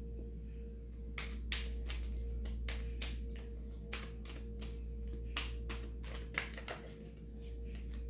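Tarot cards being handled and shuffled by hand: a run of irregular crisp snaps and clicks over soft, steady droning background music.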